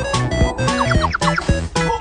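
Background music with a quick run of short, evenly spaced notes.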